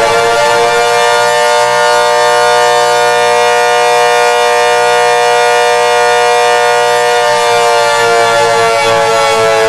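Loud civil-defense-style siren tone sounding as an emergency alert alarm, held as a steady chord of several pitches. About seven seconds in, its lower tones drop away and the pitches shift slightly.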